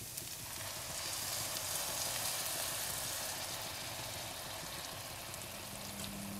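Hot beef broth ladled into a pan of dried, toasted risotto rice with radicchio, sizzling on contact; the sizzle swells about a second in and then slowly eases.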